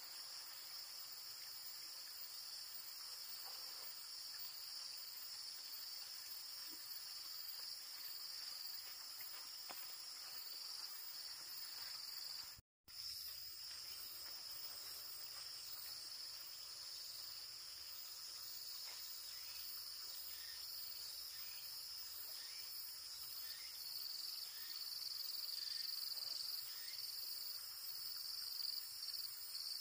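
Steady chorus of forest insects, a continuous high-pitched buzz, with a run of short rhythmic pulses in the buzz in the second half. The sound drops out for an instant near the middle.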